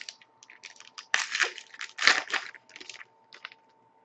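Foil wrapper of a 2010-11 Panini Zenith hockey card pack crinkling as it is opened by hand: a run of irregular crackling rustles, loudest about one and two seconds in, stopping about three and a half seconds in.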